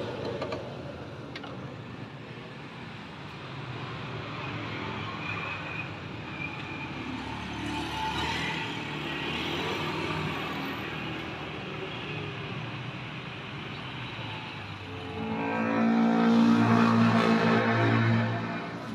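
Street traffic passing close by: a steady wash of road noise, with a vehicle engine passing loudly for a few seconds near the end.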